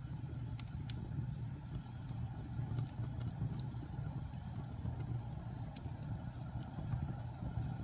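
Wood fire burning in a fireplace: a steady low rumble with irregular sharp crackles and pops from the burning logs, about a dozen of them.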